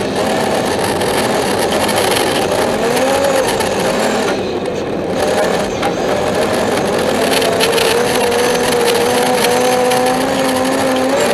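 BMW 325i rally car's straight-six engine running hard under load, heard from inside the cabin. The revs dip briefly about four seconds in and then climb steadily again, over a steady rush of road noise.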